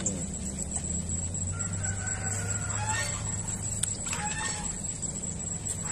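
A rooster crowing faintly in drawn-out calls, over a low steady hum.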